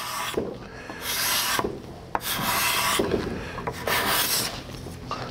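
Steel card scraper, flexed between the thumbs, scraping along the edge of a wooden board in three strokes about a second and a half apart, each a short hiss. Its freshly burnished hook is cutting thin curls rather than dust.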